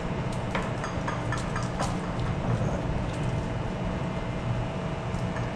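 Steady low hum of a ship's machinery and ventilation, with a few light clicks in the first two seconds.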